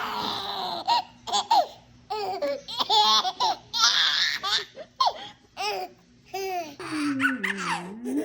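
A baby laughing in repeated short high-pitched bursts, ending in a longer squeal near the end.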